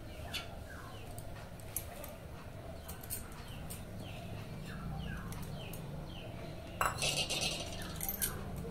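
A small animal's repeated short falling cries, about two a second. A brief metallic clatter from the steel mixing bowl comes about seven seconds in.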